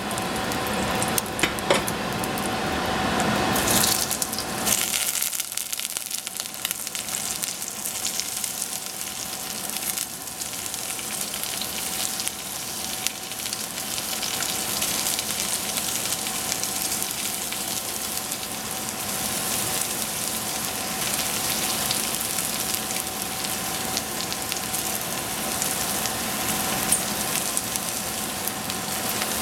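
Hot oil sizzling in a stainless steel saucepan as pieces of oyster mushroom are dropped in by hand. The frying hiss is steady, with a louder burst about four seconds in.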